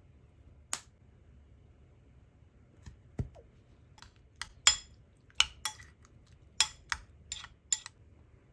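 Kitchenware clinking: about a dozen sharp, scattered clinks and taps, some with a short ring, the loudest about halfway through, with a duller knock about three seconds in.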